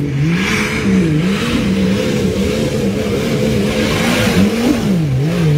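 Jeep Wrangler's engine revving hard under load as it climbs a steep, muddy hill cut. The revs rise and fall over and over, about once a second, as the driver works the throttle.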